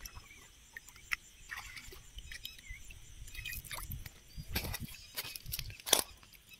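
Scattered small splashes, drips and clicks as a hand-held conical fishing net is worked down into shallow water by hand. The strikes cluster around four and a half seconds in, and one sharper knock near the end is the loudest.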